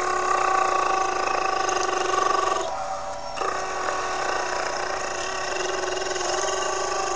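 A person making a steady buzzing mechanical sound effect with the voice, held on one pitch, imitating a toy figure's neck extending. It breaks off briefly about three seconds in, then carries on.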